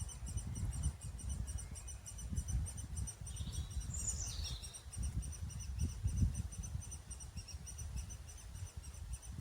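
Birds calling: a fast, steady, high-pitched chirping repeats throughout, and one louder call falls in pitch about four seconds in. A low rumble runs underneath.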